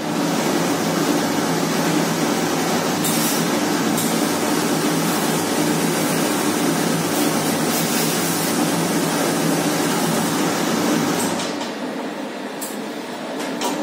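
Steady motor hum and hiss from a steam ironing machine while a shirt is pressed, with a few short hisses of steam from the iron. The noise drops for a moment near the end.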